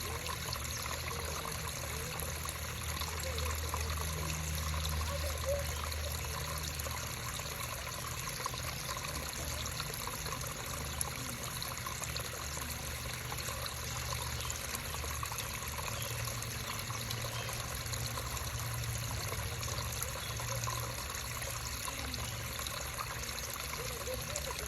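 Water of a small creek trickling and babbling steadily, with a low steady rumble underneath.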